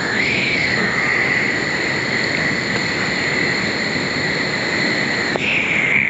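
Steady rushing of river water around a person drifting in the current, with a steady high-pitched tone running over it and a brief click near the end.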